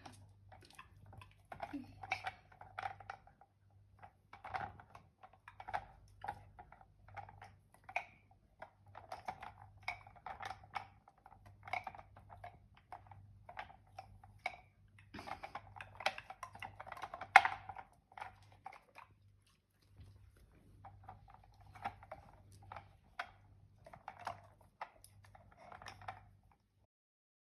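A dachshund crunching and chewing its food: a long run of irregular short crunches and clicks, with one sharper, louder snap about two-thirds of the way through, over a faint low hum.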